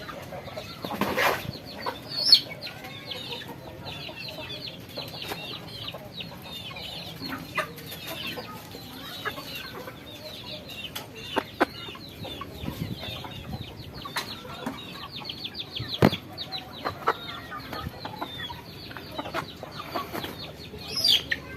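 A flock of chickens clucking and calling continuously, many birds overlapping, with scattered sharp knocks and clicks.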